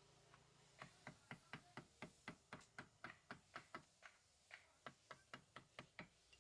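Faint, steady taps of a wooden mallet driving a chisel into a wooden carving, about four strikes a second, starting about a second in, with a brief pause about two-thirds of the way through.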